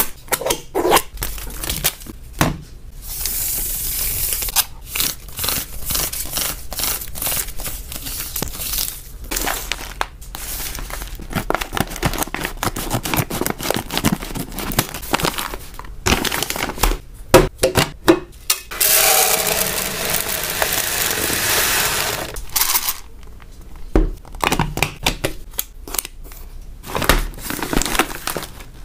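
Small plastic snack packets crinkling and being torn open by hand, with many sharp crackles and clicks. A longer stretch of steady rustling comes about two-thirds of the way through.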